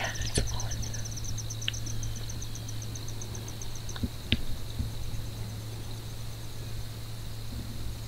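Insects chirping: a high-pitched chirp repeating about five times a second, fading out about halfway and coming back near the end, over a steady high-pitched insect whine and a few faint clicks.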